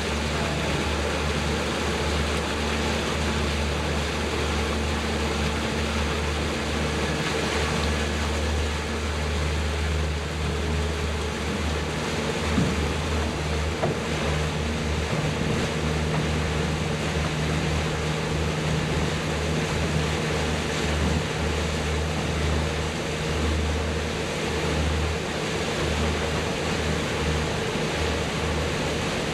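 Boat motor running steadily under way, a constant low hum mixed with wind and water rushing past the hull.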